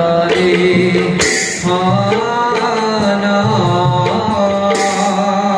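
Live Bhaona music: singing over instrumental accompaniment, with two bright crashes, about a second in and again near the end.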